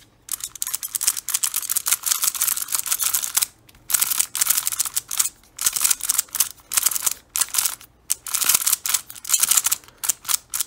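Xiaomi Giiker i3 magnetic smart cube being turned quickly by hand, its layers making rapid, very clicky clicking in runs broken by a few brief pauses.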